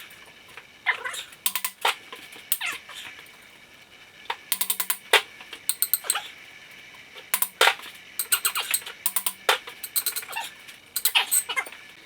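Irregular metallic clinks and clicks of hand tools and engine parts being handled during a teardown, several ringing briefly.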